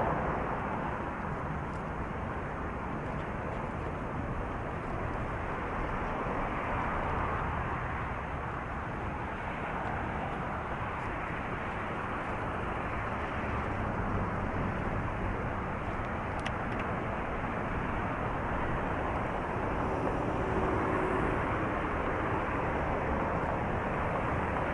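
Steady rushing of wind and road traffic heard from a moving bicycle, with no single event standing out.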